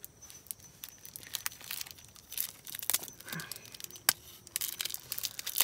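Small plastic sachet of soy sauce being torn open and crinkled: a run of sharp crackles, with one louder snap about four seconds in.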